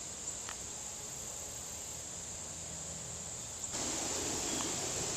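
Steady high-pitched chorus of insects. A broad background hiss grows louder about three and a half seconds in.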